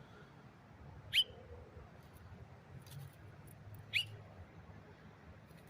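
A small bird chirping: two short, high chirps that sweep upward in pitch, about three seconds apart.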